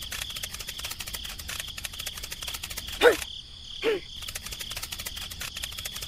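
Insects chirping in a fast, steady trill. About halfway through come two short calls that fall in pitch, a second apart, and these are the loudest sounds.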